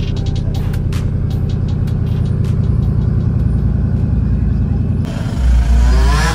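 Diesel pickup truck engine idling with a steady low rumble. After a cut about five seconds in, a louder engine revs, its pitch rising near the end.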